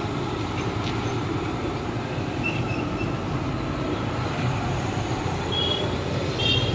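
Aloo bajji deep-frying in a large iron kadai of oil: a steady sizzle, with street traffic noise under it and a few short high beeps near the end.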